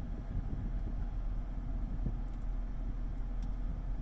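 Steady low background rumble, with a couple of faint light clicks about halfway through and near the end.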